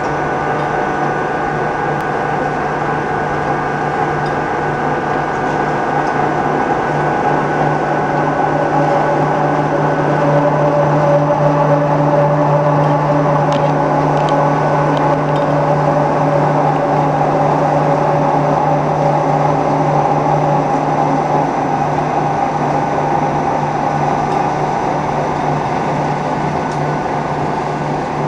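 Fertilizer pellet production machinery running: the electric motors of a pellet mill, its feed conveyor and ball-shaping pans. It makes a constant mechanical hum with a strong low tone and several steady higher tones, growing a little louder midway.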